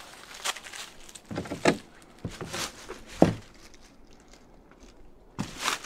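Footsteps on debris and wooden boards inside a small room: a few separate scuffing steps, with one sharp knock about three seconds in.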